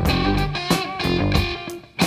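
Instrumental rock music: electric guitar over bass and drums, with a steady beat and no singing.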